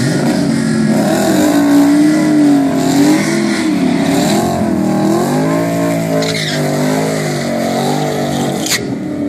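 Ford Mustang doing a burnout to heat its rear tyres: the engine is held at high revs that keep swinging up and down while the tyres spin and squeal. There is one sharp click near the end.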